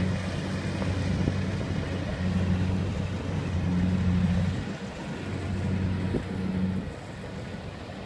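Engine of a compact rice combine harvester running steadily at work, a low droning hum heard from a distance; it dips briefly about halfway and drops lower near the end.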